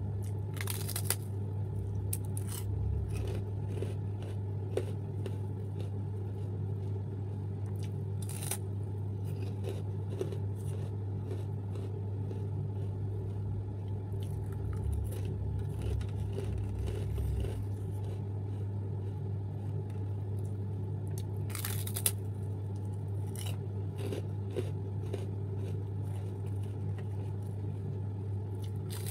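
A person biting into and chewing crisp Want Want crackers: soft crunching with a few sharper bites, the clearest about a second in, near eight seconds and near twenty-two seconds, over a steady low hum.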